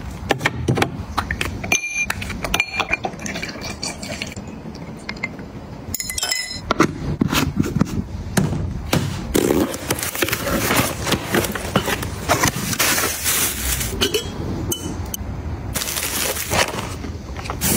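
Close-up handling of groceries and packaging: a string of sharp clinks, taps and knocks from containers and lids, with stretches of dense crackling. Near the end the crackling is cellophane wrap being pulled off a box.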